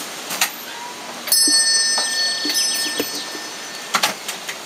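A small metal bell rings once about a second in, several high ringing tones fading away over about a second. A few short clicks come before and near the end.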